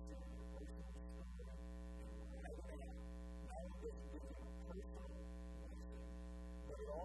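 Steady electrical mains hum with a ladder of buzzing harmonics, unchanging throughout; a faint voice shows only in small traces underneath.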